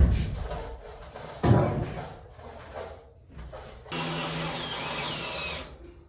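Two heavy knocks on wood framing lumber, one right at the start and another about a second and a half in, then a cordless drill runs steadily for about two seconds near the end.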